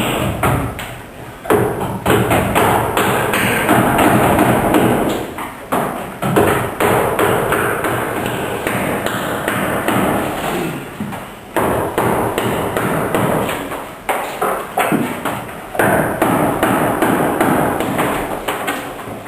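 Mallets knocking on carving chisels, with many strikes in quick succession over a dense scraping noise, and a few louder knocks standing out.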